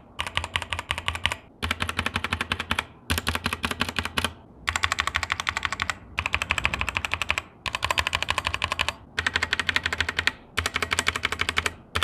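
Leaven K620 60% mechanical keyboard being typed on fast, its alphanumeric key switches clacking in runs of a second or so with brief pauses between.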